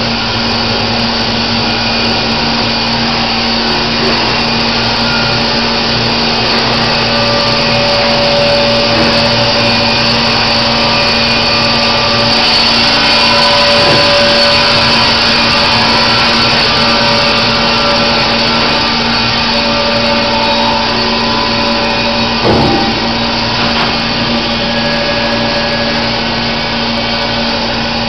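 Baker Products Super Streak band sawmill running steadily, its blade sawing through a white oak log, with a constant hum and a few steady higher tones. A brief knock comes about three quarters of the way through.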